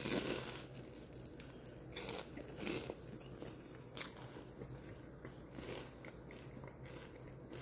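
Faint crunching bites and chewing of a crisp fried corn-dog crust, a few separate crunches spread through.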